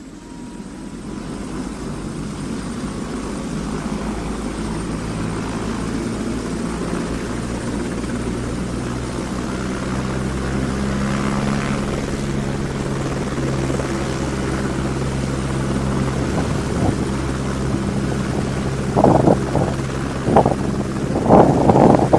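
Helicopter running steadily, rising in quickly at the start and then holding as a continuous rotor and engine drone, with a few short louder sounds near the end.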